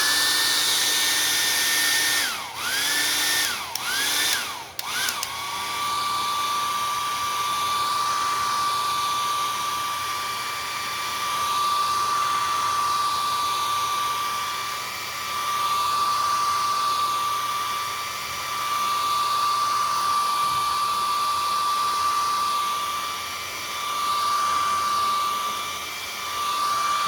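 Handheld hair dryer blowing to dry wet acrylic paint: a steady whining fan with a rushing of air. Its pitch drops and recovers three times in the first few seconds, then it runs steady at a lower pitch, swelling and fading in loudness as it is moved about.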